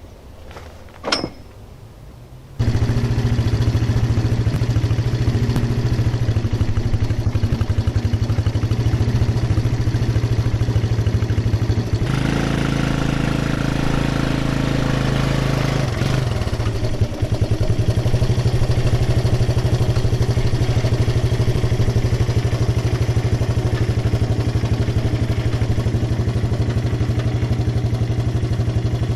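Engine of a small vehicle used as a pulling machine, running steadily as it hauls a parbuckling rope to roll a log up a ramp onto a sawmill. It starts suddenly a couple of seconds in, its note changes for a few seconds in the middle, and it cuts off at the end. A short sharp sound comes shortly before the engine starts.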